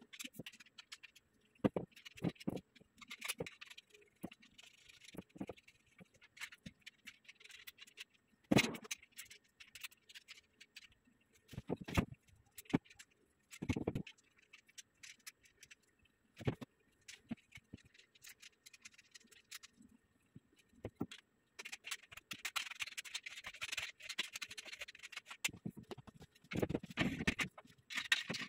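Steel bed frame parts being handled and fitted together: scattered clinks and knocks of metal rails and bolts, with a few louder knocks. Scraping and rustling run through the last few seconds.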